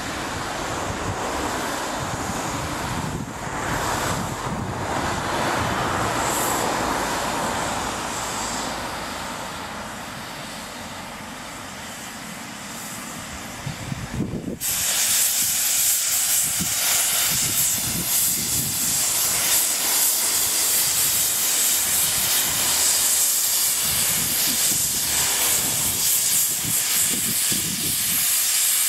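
Double Fairlie narrow-gauge steam locomotive Merddin Emrys moving off slowly, steam hissing from around its cylinders. About halfway through, a much louder, higher hiss cuts in suddenly and holds.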